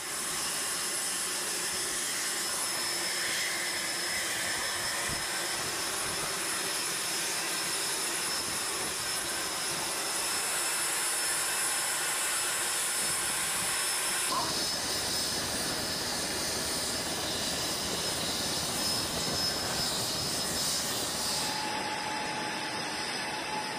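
Aircraft engines running on a carrier flight deck: a steady hiss with a thin high whine. The sound changes abruptly about 14 seconds in and again near the end.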